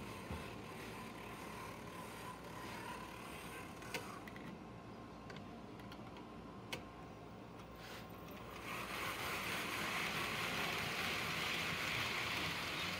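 HO scale model trains running on sectional track, a steady whirr of small motors and rolling wheels with a couple of sharp clicks. About two-thirds of the way through it grows louder as a train runs past close by.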